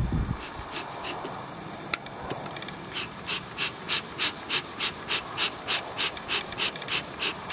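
Bee smoker bellows pumped in quick, even strokes, each one a breathy puff of air forced through the smoker to keep the fuel burning and push out smoke. The puffs are faint at first and from about three seconds in come loud and regular, about three to four a second. A low bump at the very start and a single sharp click about two seconds in.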